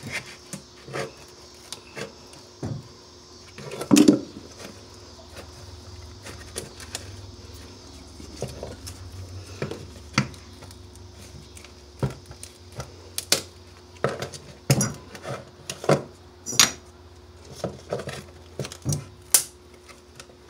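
Old floor tile being picked, scraped and pulled up off a wooden subfloor by hand: irregular scrapes, clicks and knocks, the loudest about four seconds in.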